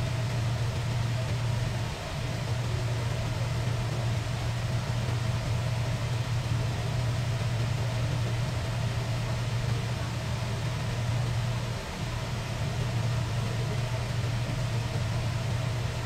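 Steady low mechanical hum, like a motor running, dipping briefly twice.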